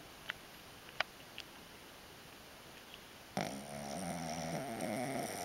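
Boston terrier snoring in her sleep: a few faint clicks, then one long snore starting about three and a half seconds in.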